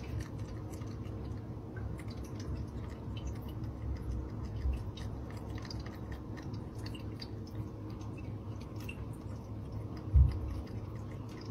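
A cat nibbling and gnawing at its own front paw: a steady run of small, wet chewing clicks. A single low thump near the end.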